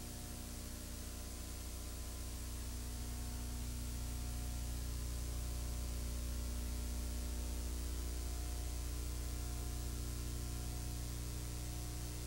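Steady engine and propeller drone heard inside a Cessna 182's cabin in flight: a low hum under an even layer of hiss, growing a little louder a few seconds in.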